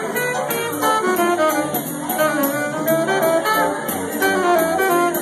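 A big band playing jazz: saxophones and brass over drums, with a steady beat on the cymbals.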